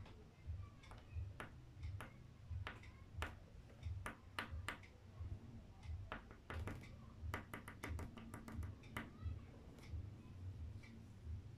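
A stick of white chalk pastel tapping and dabbing on black paper, in irregular sharp clicks with a quick run of them in the middle. A low pulse repeats steadily about twice a second underneath.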